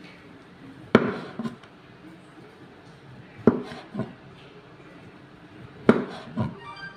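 Knife slicing through a block of tempeh and knocking against a wooden cutting board: three pairs of sharp knocks, about two and a half seconds apart.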